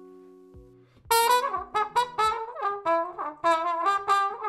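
Jazz music with a brass horn playing the melody. A soft held chord comes first, then the horn comes in loudly about a second in with a run of short notes.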